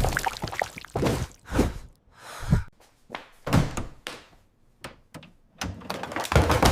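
A series of separate dull thuds and knocks, some with a low boom, and a short hissing swish about two seconds in.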